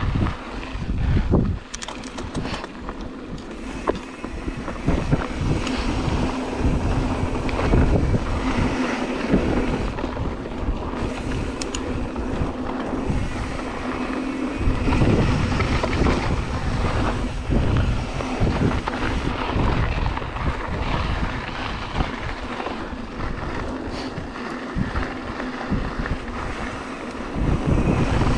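Mountain bike (2016 Ibis Mojo HD3) riding down dirt singletrack: wind buffeting the camera microphone, with rolling tyre noise and scattered knocks and rattles from the bike over rough ground.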